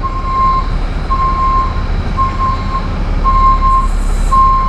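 Vehicle backup alarm beeping about once a second, a single steady-pitched tone, over a low engine rumble.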